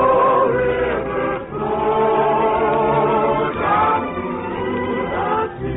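Chorus singing long held notes in a musical-comedy number, in phrases that break about a second and a half in and again about four seconds in. The sound is thin and narrow, as on an old radio broadcast recording.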